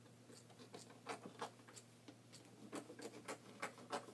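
Scissors snipping through folded Ankara print fabric and a paper pattern: a run of faint, quick snips that come faster toward the end.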